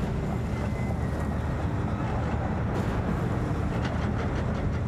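Steady low mechanical rumble, like an engine running, with a hiss over it.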